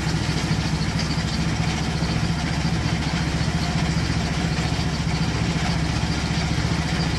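Riding lawn mower's engine running steadily at an even speed.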